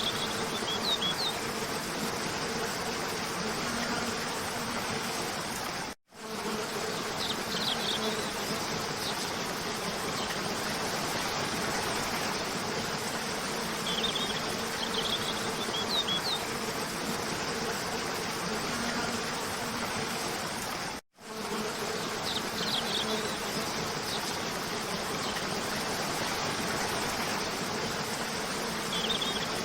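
Waterfall rushing steadily, with short bird chirps breaking in every several seconds and a steady low hum underneath. The sound cuts out for an instant twice, near 6 and 21 seconds in, where the recording loops.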